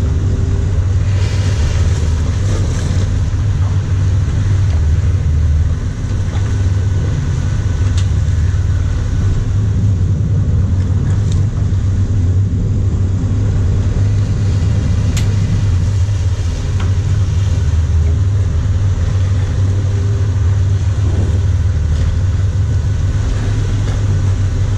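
Sportfishing boat's inboard engines running with a steady low rumble and a hiss of water and wind over it, with a few faint clicks.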